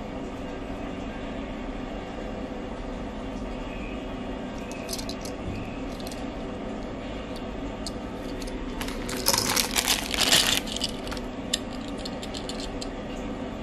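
Small Tomica die-cast toy cars handled close to the microphone: scattered light clicks and taps, and about nine seconds in a short burst of metallic clattering and rattling, over a steady low hum.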